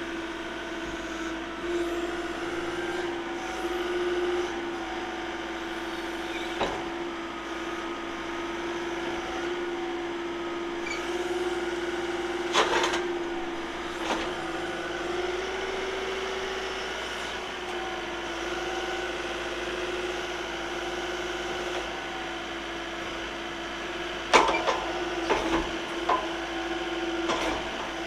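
Deere 331P compact track loader's diesel engine running steadily while the grapple is worked through its tilt and dump, its note shifting slightly about midway. Scattered sharp knocks, with a cluster of them near the end.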